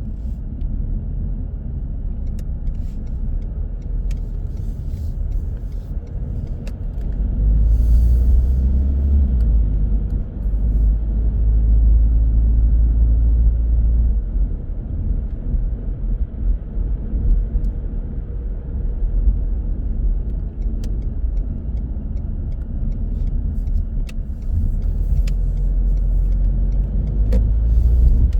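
Car driving in city traffic: a steady low rumble of engine and tyre noise that grows louder about a quarter of the way in and again near the end, with a short hiss shortly after it first swells and a few faint clicks.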